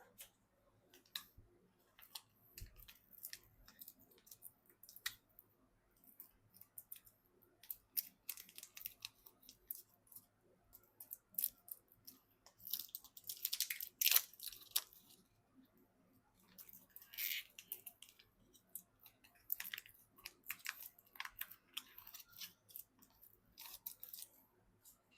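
Hands working on PC parts during assembly: irregular small clicks, snaps and crinkly plastic rustles, with a denser burst of scraping and rustling about halfway through.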